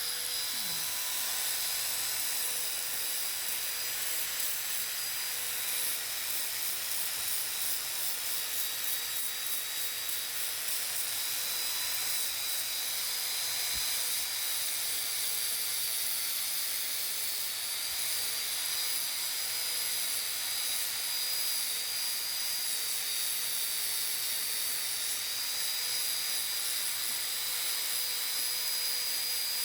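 Electric power sander running steadily on wood: a constant motor whine over the hiss of the abrasive.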